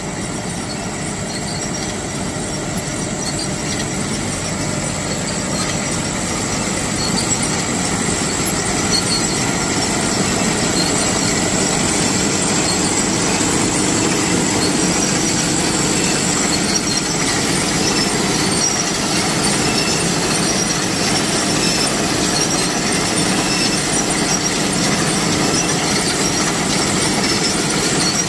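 A tractor-driven legume harvesting machine running steadily, with dense mechanical clatter and a thin, steady high whine over it. The noise grows slightly louder over the first several seconds, then holds.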